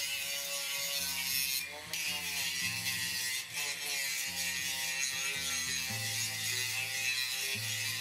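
Angle grinder with a sanding disc stripping old paint from a steel railing to prepare it for repainting: a steady high hiss that breaks off briefly twice, about two and three and a half seconds in. Background music with a stepping bass line plays under it.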